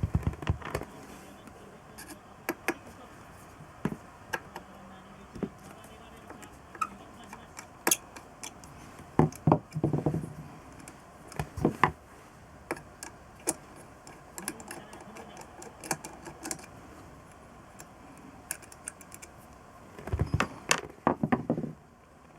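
Small metal parts and hand tools clicking and clinking as a Honda MC23 Jade's four-carburetor bank is worked on. The taps are scattered, with short busier bursts of handling near the start, about halfway through, and near the end.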